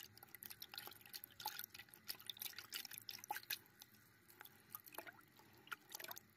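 Faint, scattered drips and small trickles of water running through the narrow channels of a miniature model farm and into its flooded paddy.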